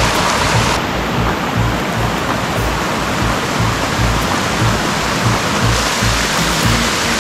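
Background music with a steady low beat, over an even rushing noise.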